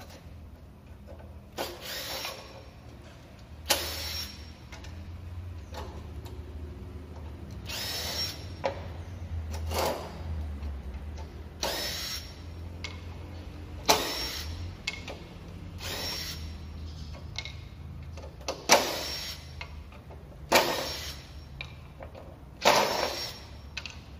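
Makita DTD149 (XDT04) 18V cordless impact driver driving screws into wooden boards: about ten short runs, each a second or less, roughly one every two seconds.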